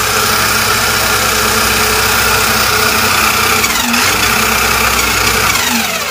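ZD Racing Rocket 1/8-scale 4WD RC rally car's brushless motor and drivetrain spinning the wheels off the ground on a 3S LiPo battery, a loud steady whine. The pitch dips briefly about four seconds in, then falls and fades near the end.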